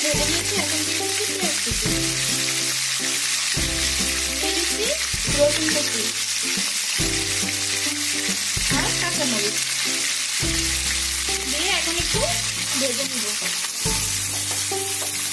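Shrimp sizzling in hot oil in a nonstick pan, joined by sliced onion, garlic and green chillies stirred in with a wooden spatula, a steady frying hiss. Background music with a repeating bass line plays under it.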